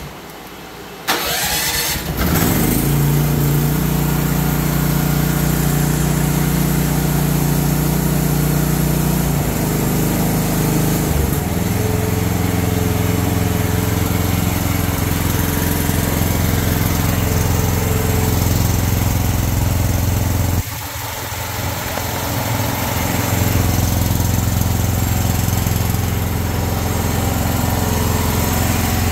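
Briggs & Stratton 13.5 XR gasoline engine of a 1-ton mini excavator starting about two seconds in, then running steadily. Its note changes about eleven seconds in, and it drops quieter for a moment around twenty-one seconds before coming back up.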